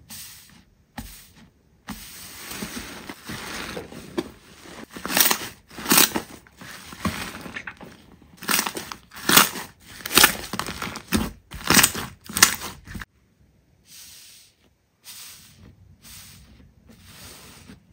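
Slime being squished and pressed, with sticky clicks and a run of sharp pops through the middle. The sound breaks off abruptly twice as the footage cuts between clips.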